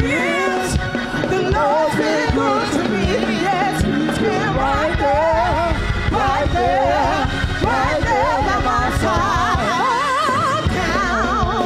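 A woman singing a gospel song solo into a microphone, her voice wavering with vibrato and sliding through held, ornamented notes, over instrumental backing.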